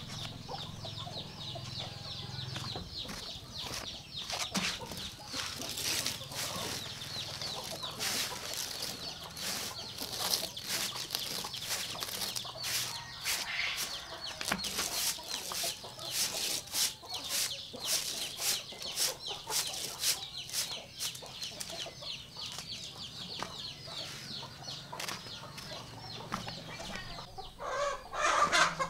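Short, irregular swishing strokes of a straw hand broom sweeping dry leaves across a concrete floor, with chickens clucking around it and a louder call near the end.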